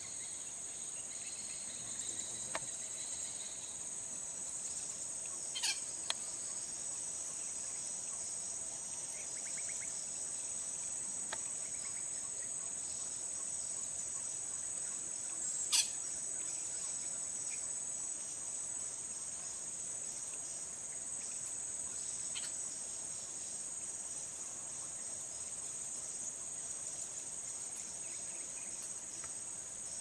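Insects shrilling in a steady, high-pitched drone throughout, with a few short sharp clicks, the loudest about halfway through.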